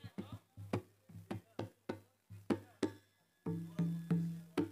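Javanese traditional percussion music: a quick, uneven pattern of sharp strokes over deep pitched drum tones, with a longer low tone held for under a second about three quarters of the way through.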